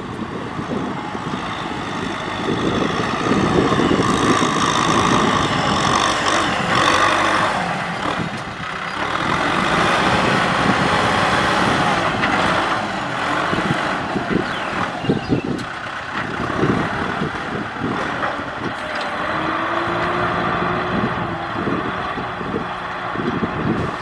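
Kubota M6040SU tractor's diesel engine running under load while pulling a disc plough through dry field soil, with frequent knocks and rattles from the working implement.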